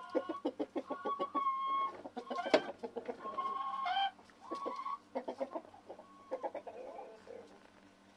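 Domestic hens clucking: runs of quick clucks broken by a few drawn-out calls, thinning out near the end. A single sharp click sounds about two and a half seconds in.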